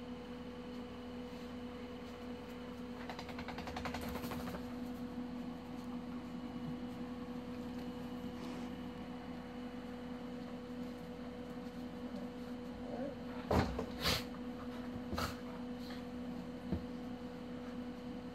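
A steady electrical hum, with a brief scuffle a few seconds in and four sharp knocks or thumps in the last third, the two loudest close together.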